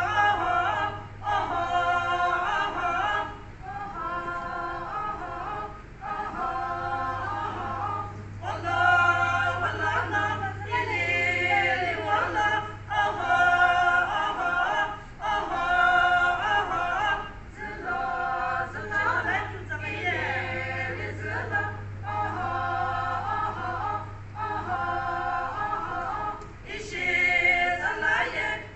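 A group of women singing a traditional chant in unison without accompaniment, in short repeated phrases with brief breaks between them. A low steady hum comes and goes underneath.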